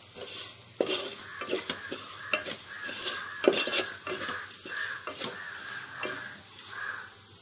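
Wooden spatula stirring and scraping fried onions, green chillies and spice powder around a metal pan, in quick repeated strokes, over the light sizzle of the hot oil. The strokes thin out near the end.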